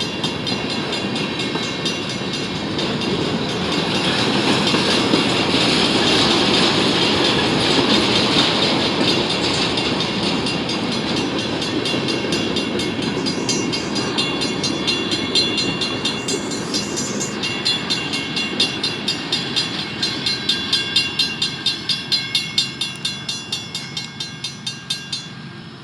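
Freight train cars rolling past on the rails: a steady rumble of wheels on rail with a thin high ringing. About two-thirds of the way through it turns into a regular clickety-clack of wheels over a rail joint, about two to three clicks a second, fading near the end.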